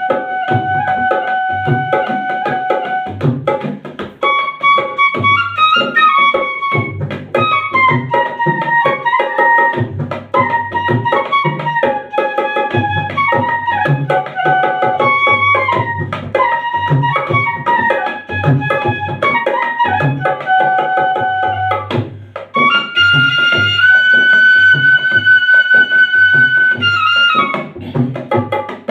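Bansuri (bamboo flute) playing a stepping melody of held notes over a steady hand-drum rhythm, rising to one long high held note near the end.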